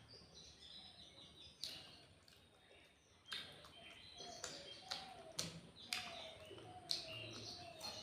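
Eating sounds: several sharp wet clicks of chewing and lip-smacking, spaced a second or two apart. Short chirps of birds repeat in the background.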